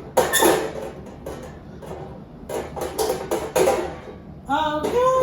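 Background music with plucked guitar and a few percussive hits; a voice comes in near the end.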